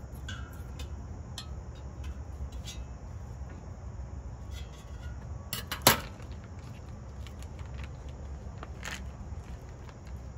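Kitchen scissors set down on a glass tabletop with one sharp clack about six seconds in. Around it, faint clicks and rustling as raw bacon and its plastic package are handled, over a steady low rumble.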